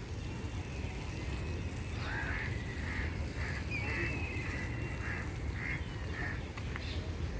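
A bird calling repeatedly, about seven or eight short calls over roughly four seconds, starting about two seconds in, over a steady low background rumble.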